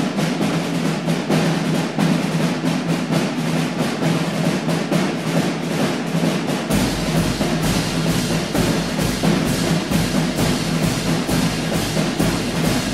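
Soundtrack music driven by fast percussion, a rapid stream of drum strokes. A deep bass layer comes in about halfway through, and the music fades out near the end.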